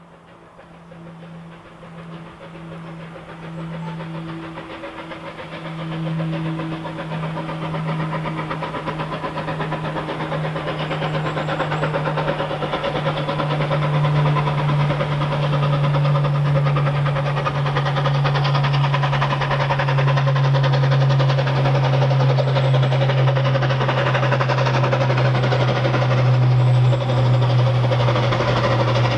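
Three-cylinder Bulleid unrebuilt Battle of Britain Pacific steam locomotive working hard with a freight train as it approaches. Its exhaust and running noise grow steadily louder.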